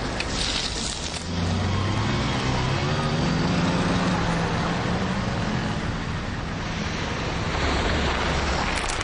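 Road traffic: cars driving past on a city street, with tyre noise and an engine hum that grows louder about a second in.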